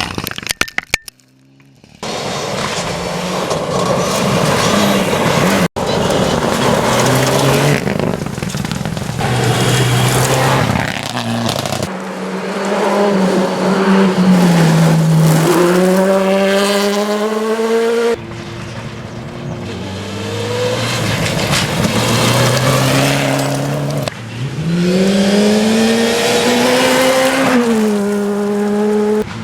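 Rally cars on a gravel stage at full throttle, one after another: engines rev up hard through the gears with sharp drops in pitch at each gear change. Each car's sound cuts off abruptly and the next begins.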